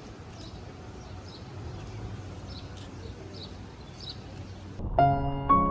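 A small bird chirping repeatedly, about twice a second, over a steady outdoor noise bed. About five seconds in it gives way to piano music.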